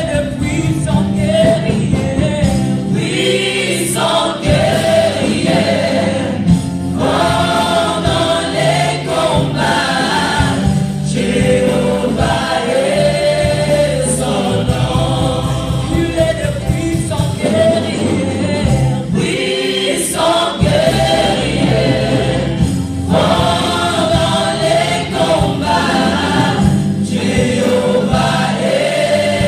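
Gospel choir singing through microphones in phrases, with amplified guitar accompaniment and a steady low line underneath.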